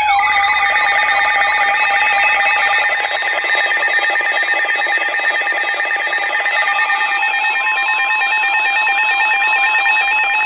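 Emergency alert attention tones: a loud layer of electronic alarm tones, one steady tone held under several beeping, stepping and warbling ones, signalling an incoming weather warning.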